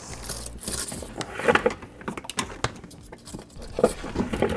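Wire bundle and pull wire being dragged up through an opening and handled, scraping and rustling in irregular bursts with a few small clicks.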